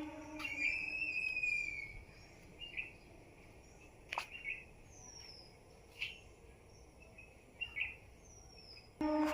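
Birds calling: short chirps and a few thin, falling whistles, spaced a second or two apart. A steady droning tone stops about half a second in and comes back near the end.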